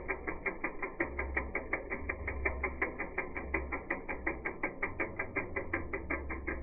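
Rapid, even clicking, about six or seven clicks a second, with a low rumble that comes and goes.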